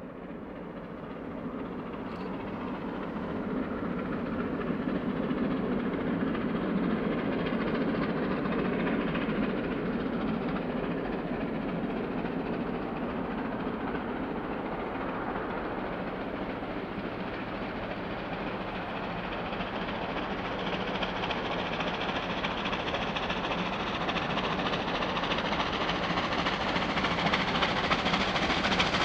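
Steam locomotive R761, a 4-6-4 Hudson, heard approaching from a distance: a steady rumble that fades in at the start and grows louder and brighter towards the end as the train draws near.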